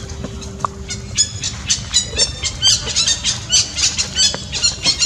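A rapid series of short, high-pitched animal squeals, about two or three a second, starting about a second in.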